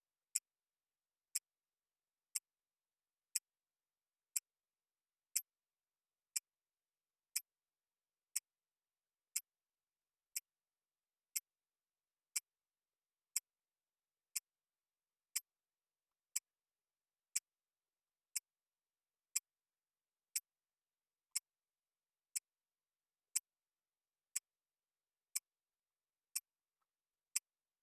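Wristwatch ticking steadily, one sharp, crisp tick each second, with silence between the ticks.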